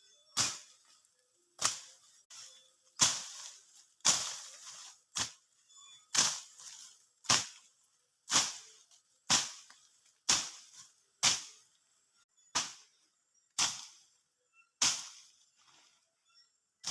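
Grass being slashed by hand with a blade: about sixteen quick, sharp swishing strokes, roughly one a second, in a steady rhythm.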